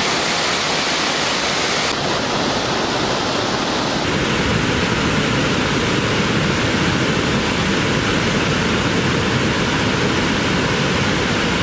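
River water pouring over a long weir and churning into white water below: a steady rush, its tone shifting slightly about two and four seconds in.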